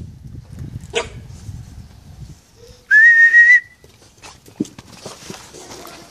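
A person whistles once, a short note about three seconds in that rises slightly and then holds for about half a second, calling the Akita puppies. Before it there is a low rustling rumble and a single sharp click.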